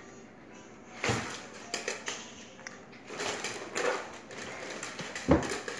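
A cat and a small dog play-fighting on a tile floor: scattered scuffles and light knocks, with a louder thump near the end.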